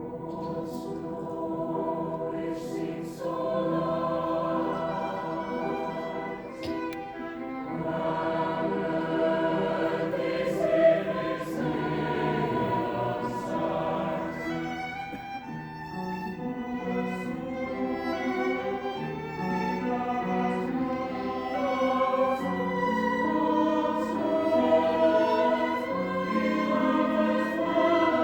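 A choir singing a classical piece with bowed strings (violins) accompanying, starting from silence.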